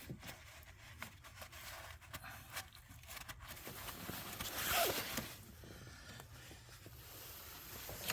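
Faint scraping and clicking of hand tools working at an engine's thermostat housing, likely scraping off the old gasket, with one louder scrape about five seconds in.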